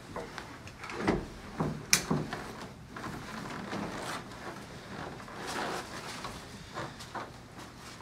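Knocks and creaks of a padded chiropractic table as a person sits down and lies back on it, with rustling of clothes against the cushion. The loudest knocks come about one and two seconds in.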